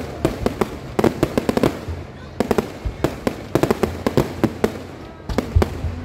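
Aerial fireworks going off in rapid volleys of sharp bangs and crackling pops, several per second, grouped into clusters about every second.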